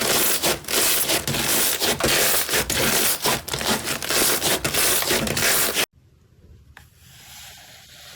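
Slime being squeezed and worked by hands close to the microphone: a loud, dense crackling and rubbing with many quick pops. It stops abruptly about six seconds in, leaving only a faint click.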